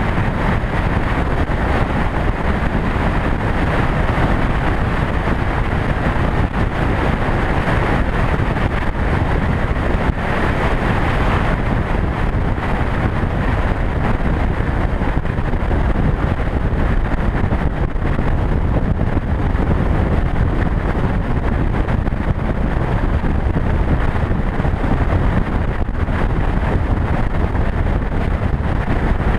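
Steady wind rush on the microphone of a motorcycle cruising at highway speed, mixed with its engine and tyre noise.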